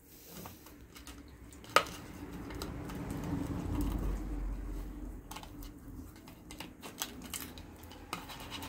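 Hands rubbing salt and spice powder into raw catla fish head pieces on an enamel plate: soft handling noise with scattered light clicks and taps on the plate, one sharper click just under two seconds in.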